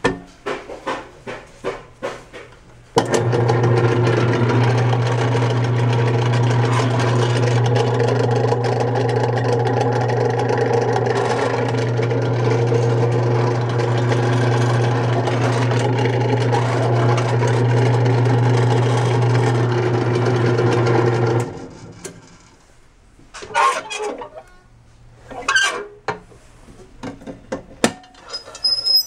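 Electric motor of a Royal vegetable processor switched on, running with a steady low hum, then switched off about three-quarters of the way through. Clicks and knocks from handling the metal machine come before it starts and after it stops.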